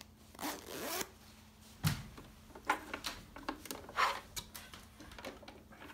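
The newly sewn zipper on a hoodie being run along its teeth, a scratchy rising zip early on. Then fabric is handled, with a string of short knocks and rubs, the sharpest at the very end.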